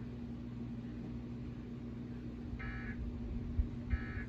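Emergency Alert System end-of-message signal: short warbling digital data bursts, two of them about a second apart, over a steady low hum, with a low thump just before the second burst.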